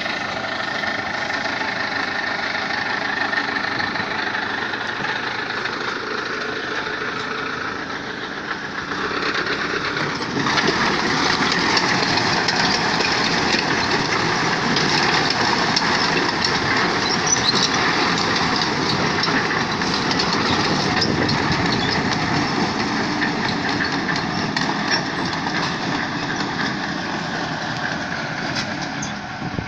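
TDT-55 skidder tractor's diesel engine running steadily, growing louder and fuller about ten seconds in and holding there.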